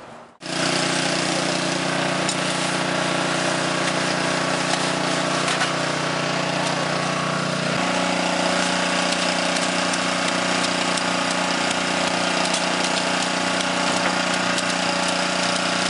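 Small engine of a portable concrete mixer running steadily with a constant drone. Its note shifts slightly about eight seconds in.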